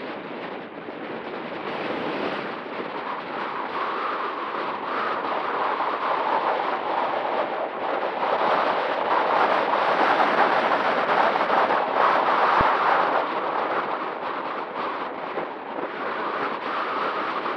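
Strong wind buffeting the microphone, a rushing noise that swells louder for several seconds midway, with a faint steady tone beneath it.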